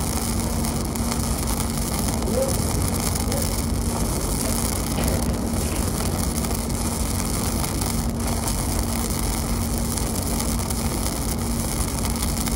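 Gasless flux-cored arc welding on structural steel: the arc crackles steadily and densely without a break, over a steady low hum.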